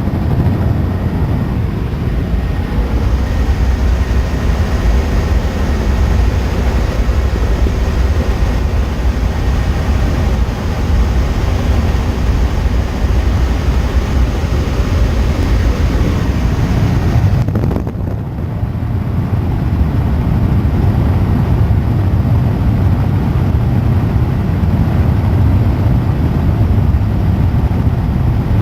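Helicopter in flight, heard on board: loud, steady rotor and engine noise heavy in the low end, with a brief dip in the higher sound about two-thirds of the way through.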